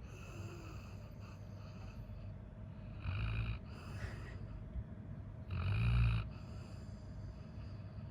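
A sleeping Labrador retriever snoring loudly: two snores about three seconds apart, with the end of another one right at the start.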